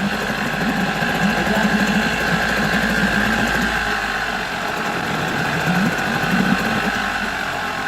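Nissan 5 hp two-stroke outboard motor running steadily, its exhaust bubbling up through the water beneath it.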